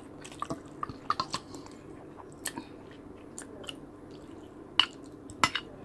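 Close-up chewing and swallowing of a mouthful of rice and sinigang, soft and wet, with scattered small mouth clicks. Two sharper clicks stand out near the end.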